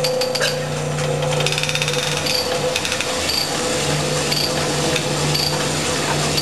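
Cylinder hone running with coarse roughing stones in the ductile-iron sleeved bore of a Subaru EJ257 block, under a torque plate and flooded with honing oil. It makes a steady machine hum with a short high squeal coming back about once a second.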